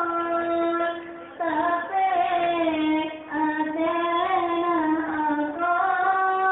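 A female voice singing a sholawat, an Islamic devotional song, in long held, slightly wavering notes, with short breaks between phrases.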